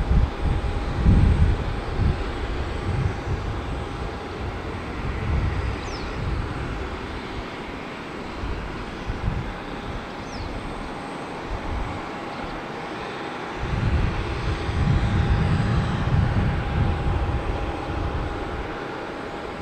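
Airbus A350-900's Rolls-Royce Trent XWB jet engines running at low taxi thrust: a steady rushing hum with a thin steady whine, over an uneven low rumble that swells and fades.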